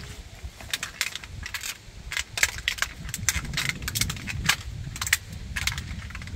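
Die-cast model truck being crushed under flip-flop soles on concrete: a run of sharp, irregular metal and plastic cracks and clicks as the toy's body gives way and scrapes on the step.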